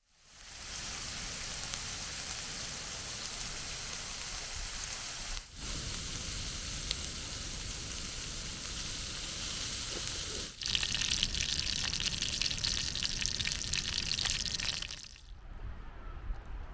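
Food frying over a campfire: a steady sizzle in three stretches with brief breaks between them. The last stretch, from about ten seconds in, is louder and crackles more, and it cuts off suddenly near the end.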